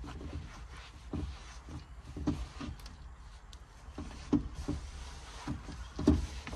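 A cloth rubbing and wiping over a car's steering wheel, with gloved-hand handling noises and several short knocks.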